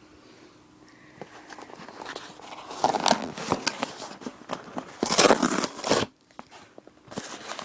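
Packaging being torn open and handled: crinkling, tearing and rustling with small clicks, loudest about three seconds in and again from five to six seconds in, where it cuts off suddenly.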